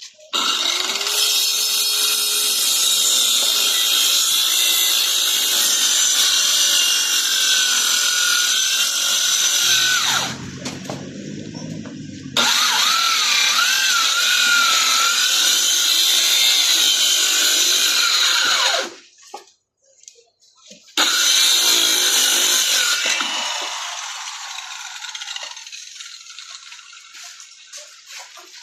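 Electric power tool cutting in three long runs, its pitch wavering and sagging under load. A short low hum sits between the first two runs, and the last run fades out slowly.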